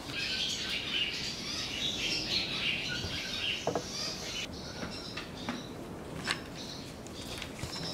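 Barn swallows twittering: a dense, high chatter for the first four seconds or so, then scattered single chirps.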